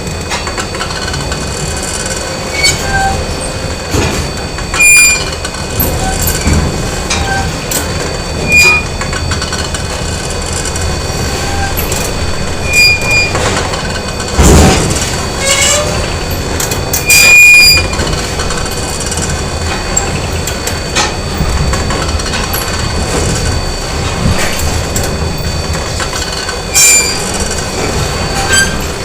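Factory machinery ambience: a steady mechanical hum and hiss with several held whining tones. It is broken every few seconds by short metallic clanks and high squeals, with a heavy low knock about halfway through.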